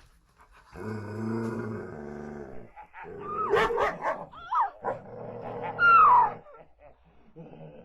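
A dog growling low, then breaking into sharp barks and yelps with quick rising and falling cries, and growling again before a falling yelp.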